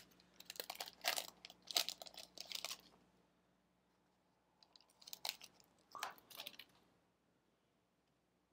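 A Panini Chronicles Football card pack's wrapper crinkling and tearing as it is opened by hand, in quick crackly rustles. A few more crinkles and rustles follow about five seconds in as the cards are handled.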